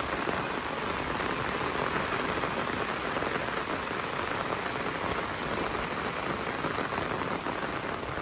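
Rain falling steadily: an even hiss of drops with no let-up.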